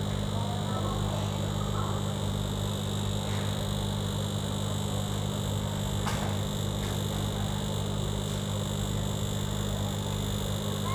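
Steady low electrical hum with a constant high-pitched whine, as of mains-powered equipment running, and a single faint click about halfway through.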